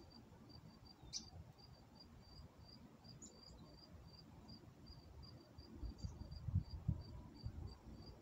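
A cricket chirping steadily in short high pulses, about three a second. Low rumbling thumps, loudest in the second half, sit underneath.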